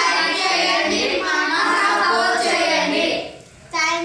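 A group of children singing together in held, sustained notes, breaking off about three seconds in; a short vocal call follows near the end.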